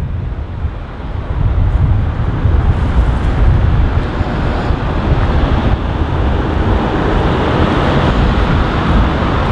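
Steady loud outdoor rush, heaviest in the low end, from wind on the microphone and street traffic, dipping briefly about a second in.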